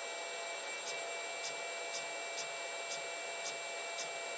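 Steady fan hiss and a faint electronic whine from an idle 3D printer, with faint ticks about twice a second.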